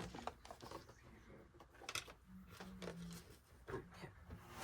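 Faint handling noises of craft materials: scattered light clicks and rustles, with a short low hum a little past the middle.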